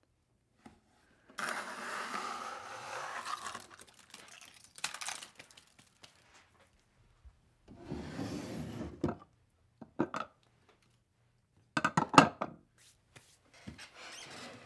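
Rubbing and rustling, then a wooden drawer sliding open, with scattered clicks and a brief cluster of loud knocks near the end.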